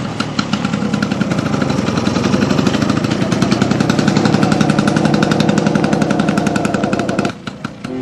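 Motor scooter engine running with a rapid, even putter, rising in pitch as it pulls away, then cutting off suddenly near the end.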